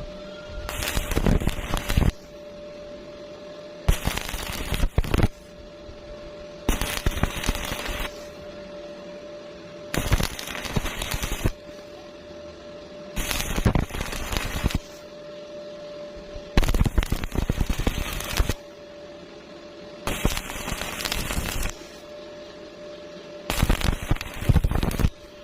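Stick welding arc crackling and sputtering in eight short runs of a second or two each, about every three seconds, as a series of short welds or tacks. A steady hum sounds in the pauses between them.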